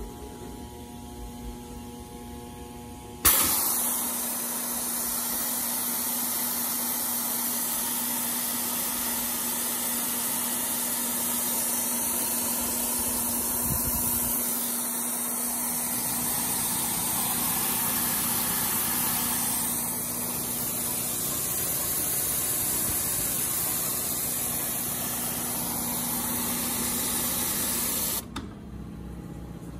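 Loud, steady hiss of rushing air from an Ackley Machine Corp tablet printer over a steady machine hum. The hiss switches on sharply about three seconds in and cuts off abruptly near the end.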